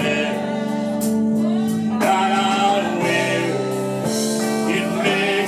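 Gospel worship song: singing with instrumental accompaniment, long notes held over a steady backing.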